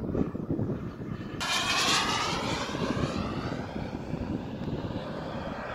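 Radio-controlled turbine model jet flying past. Its sound comes in suddenly about a second and a half in, then falls in pitch and fades as it passes.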